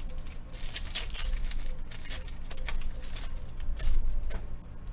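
Trading cards being handled and flipped through by hand: rustling with many light, irregular clicks and flicks.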